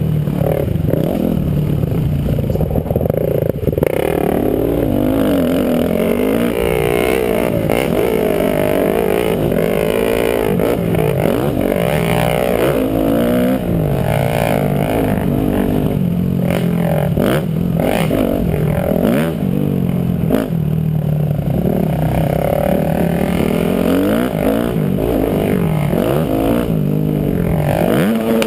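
Dirt-bike engine heard from the bike itself, revving up and down over and over as it is ridden around a motocross track.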